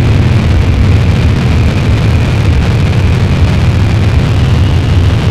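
Loud, steady low rumble with a hiss spread above it, part of an experimental noise soundtrack.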